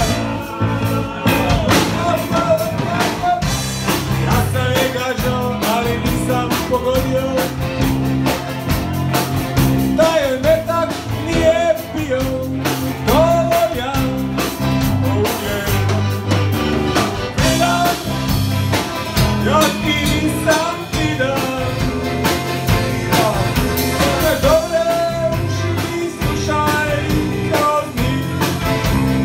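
Live band playing a song: accordion, acoustic guitar, electric bass and drum kit, with a singing voice over the top.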